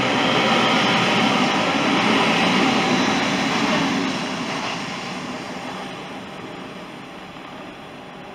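Hitachi Class 800 IET passing along the platform: a loud, steady rush of train noise that starts to fade about four seconds in, as the last carriage goes by, and dies away.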